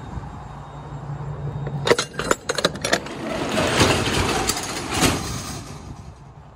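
Rear latch of a box truck's roll-up cargo door worked open with several quick metal clicks and clanks. The door then rumbles as it rolls up along its tracks, ending with a knock about five seconds in.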